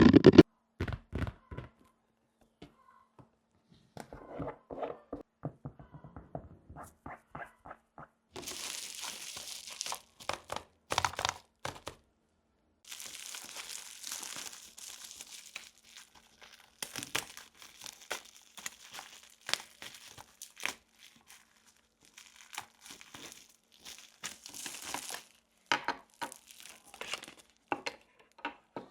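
Plastic packaging crinkling and small plastic toy pieces being handled: scattered clicks and taps, with several stretches of rustling.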